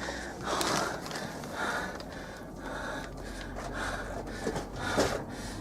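A person breathing hard in short gasps, about one breath a second, with a sharper, louder gasp near the end.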